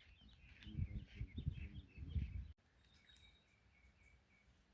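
Faint bird chirps and calls over low, uneven rumbling noise. The rumble stops abruptly about two and a half seconds in, leaving a few thin bird notes.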